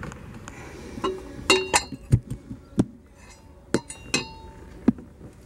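Metal water pump pulley clinking as it is wiggled loose from a rust-seized pump shaft and pulled off. About eight sharp, irregular metallic clinks, some ringing briefly.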